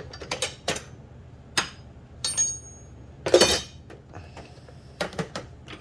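Steel sockets and tools clinking and knocking together as they are handled in a tool box drawer: a scattered series of sharp metallic clinks, some with a brief ring, the loudest cluster about three and a half seconds in.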